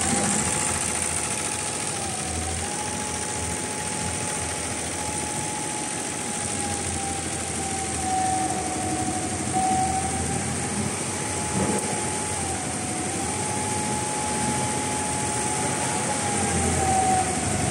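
Industrial multi-head computerised embroidery machine running and stitching: a steady mechanical clatter under a high motor whine that holds its pitch and briefly dips several times as the machine's speed changes.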